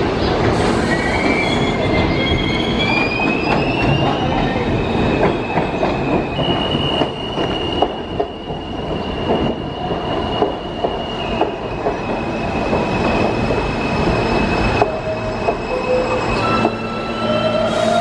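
R160A subway train pulling into the station and slowing along the platform: a steady rumble with sharp wheel clicks over the rail joints, and high whining tones that climb in steps over the first few seconds and then hold steady.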